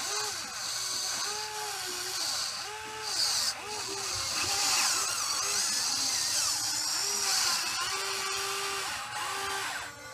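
Electric motors of a Huina 580 RC excavator whining as its boom and arm are worked, the pitch rising and falling in many short arcs as each movement starts and stops, with a high, hissy gear whine strongest in the middle.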